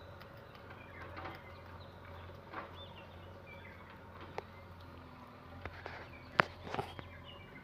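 Outdoor yard ambience with scattered short bird chirps and light footsteps. A sharp click about six and a half seconds in is the loudest sound.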